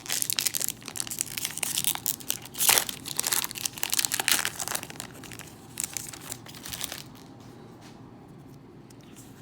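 Foil booster-pack wrapper crinkling and tearing as it is pulled open by hand, in dense crackles that stop about seven seconds in.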